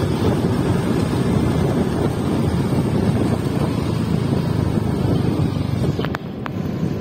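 Wind rushing over the microphone of a moving motor scooter, with the engine and road noise underneath. About six seconds in the noise drops off, and a couple of short clicks follow.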